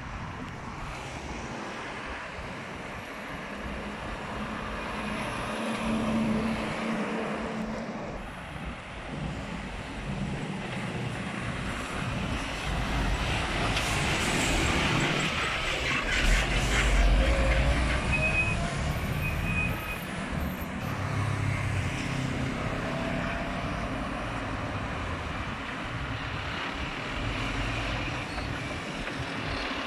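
Heavy diesel lorries passing close by in traffic, engines running and tyres on the road: a bulk cement tanker pulling away, then a crane-grab tipper lorry and a skip loader lorry. The noise swells to its loudest about halfway through, as a lorry passes nearest.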